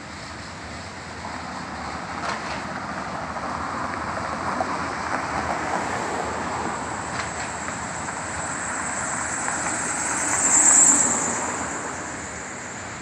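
Railroad train passing over a bridge: a steady rolling rumble that builds over several seconds, is loudest briefly near the end, then begins to fade.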